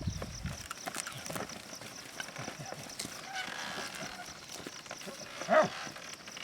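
Field ambience with a steady high hiss and faint scattered knocks, and one short, loud vocal call about five and a half seconds in.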